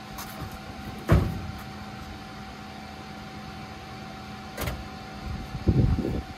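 A steady hum with a sharp knock about a second in, a thin click a little after the middle, and a short run of low thumps near the end.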